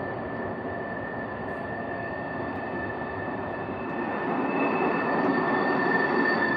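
Distant rumble of a CSX freight train's diesel locomotives, echoing up through the mountain gorge and growing louder about four seconds in.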